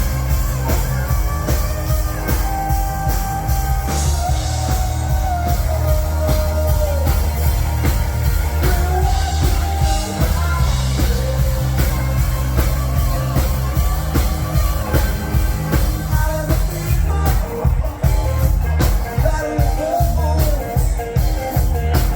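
Rock song playing: a sung melody over drums, bass and guitar with a steady beat.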